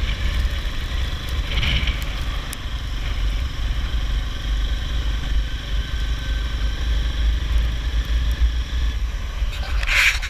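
ATV engine running steadily, with a constant low rumble under it.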